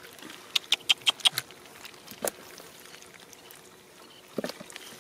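Fish flapping on wet mud, making a quick run of sharp wet slaps and clicks, a single slap a moment later, and a few more near the end.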